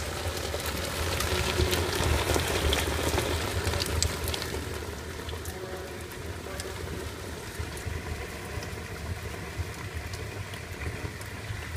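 White wine gushing from the outlet valve of a stainless steel fermentation tank and splashing steadily into the vessel below, a little louder in the first few seconds. A low steady hum runs underneath.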